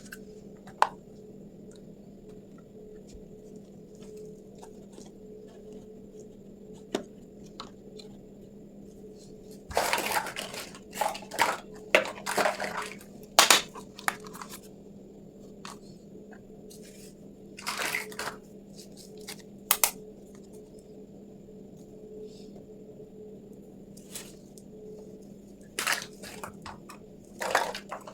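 Small pieces of a Hello Kitty toy kitchen set and their packaging being handled, making scattered clicks, taps and rustles that come in clusters, busiest about a third of the way in and again near the end. A steady faint hum runs underneath.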